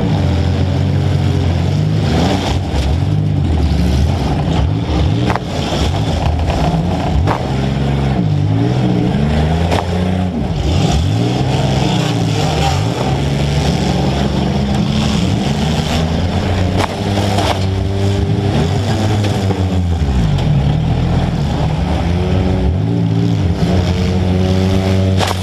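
Demolition derby car's engine, heard up close from its own hood, revving up and down again and again as it drives and reverses around the arena. Three short sharp bangs cut through it.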